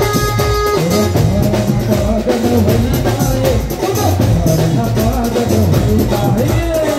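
Loud live band music with a steady drum beat and keyboard, a gliding melodic line carried over it from about a second in.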